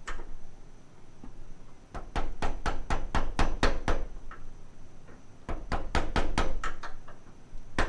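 Two runs of light taps, a few a second, as the retaining clip is knocked down onto a door lock cylinder inside a car door, alternating left side and right side to seat the clip.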